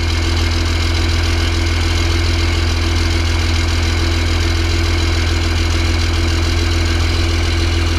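Cummins diesel engine in a Humvee idling steadily: a constant low drone that holds the same speed.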